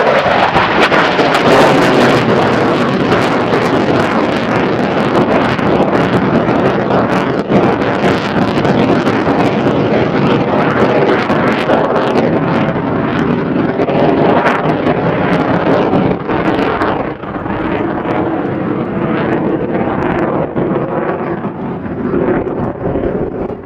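Lockheed Martin F-35A's single Pratt & Whitney F135 jet engine at full power with the afterburner lit: a loud crackling roar. It slowly fades and grows duller in the second half as the jet climbs away.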